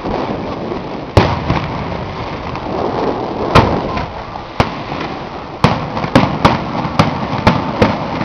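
Aerial fireworks shells bursting with sharp bangs: a few at about one-second intervals at first, then coming faster, around two a second, in the second half, over a steady noisy background.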